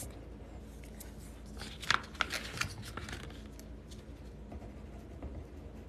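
Pen writing by hand on paper: faint short scratchy strokes, busiest about two seconds in.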